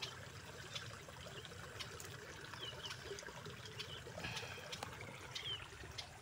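Faint trickling water, with scattered soft clicks and two short high chirps.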